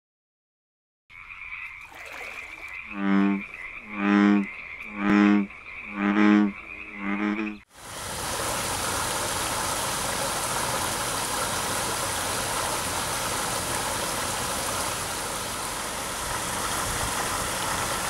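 A frog croaks five times, about once a second, over a steady high chorus. About eight seconds in, the sound cuts to the steady rush of a rock waterfall spilling into a pond.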